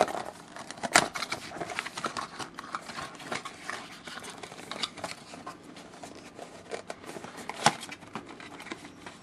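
Cardboard box and clear plastic packaging insert being handled and slid apart: a run of rustling, scraping and small clicks, with two sharp knocks about a second in and near the end.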